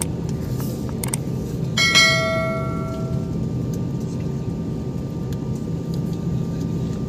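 Steady low hum of an Airbus A320 cabin on the ground. Two clicks come near the start, then about two seconds in a single bell-like ding rings out and fades over about a second and a half.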